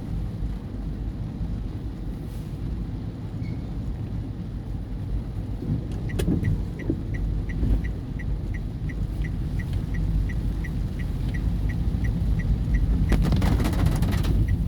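Steady low rumble of a car running, heard inside the cabin. From about six seconds in, a regular ticking about three times a second lasts some seven seconds. Near the end a dense clatter of hits on the car body sets in, which in this storm is heavy rain pelting the roof.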